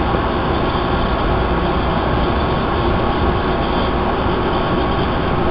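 Steady running noise of a Bombardier 01800-series MBTA Red Line subway car, heard from inside the car as it pulls out of a station and rolls along the track.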